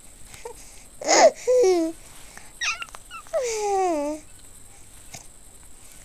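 High-pitched vocal calls, three of them: a short call with a falling pitch about a second in, a brief one near the middle, and a longer call sliding steadily downward.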